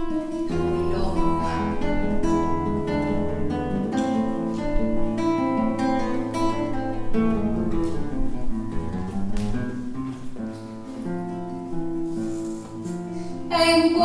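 Classical nylon-string guitar playing the instrumental introduction of a milonga, a steady flow of plucked notes and chords. A woman's singing voice comes in right at the end.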